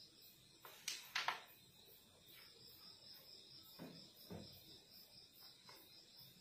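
Carrom striker handled on the wooden board before a shot: two sharp clicks about a second in, then two softer knocks around four seconds, over a faint steady high-pitched tone.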